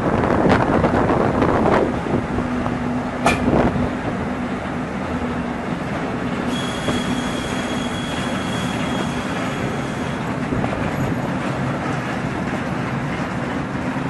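Freight train double-headed by two SBB electric locomotives passing close by: the locomotives go by loudly in the first two seconds, then a long string of goods wagons rolls past with continuous wheel clatter. There is a sharp click about three seconds in, and a high, steady wheel squeal from about six to ten seconds.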